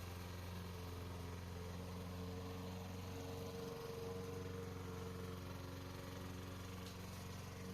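Lawn mower engine running at a steady speed, a constant low hum with no change in pitch.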